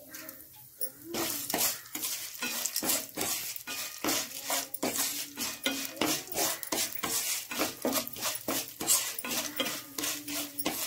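Wooden spatula stirring and scraping chana dal and urad dal around a nonstick frying pan in a spoonful of oil, the dry lentils clicking and rattling against the pan. The stirring starts about a second in and goes on as a fast run of short scraping strokes.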